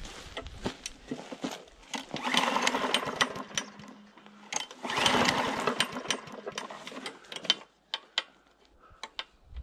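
Recoil pull starter of a 123cc Honda GXV-clone mower engine pulled twice, spinning the engine over with its spark plug out, each pull a fast whirring rattle about a second and a half long with clicks around it. The engine is being cranked to test for spark.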